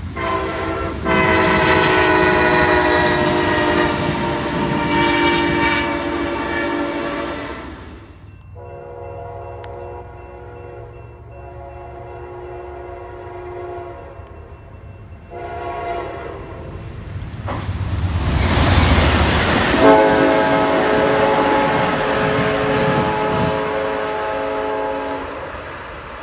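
Amtrak passenger train locomotive horns blowing long multi-note chords for grade crossings, loud at first, then fainter. About two-thirds through, a train passes at speed with a sudden loud rush, and the horn chord continues until near the end.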